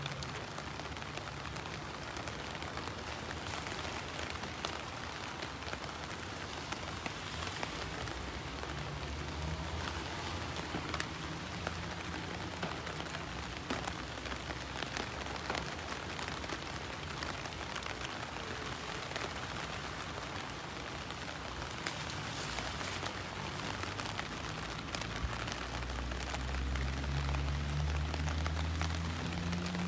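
Steady rain falling on pavement: an even hiss scattered with the ticks of single drops. A low hum swells near the end.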